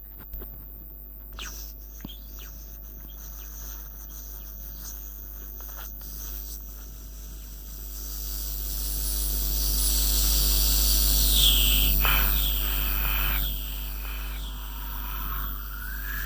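Eerie ghost sound effect: a steady low drone and hum, swelling into an airy whoosh about halfway through, with falling wail-like tones and then a tone that bends up and down near the end.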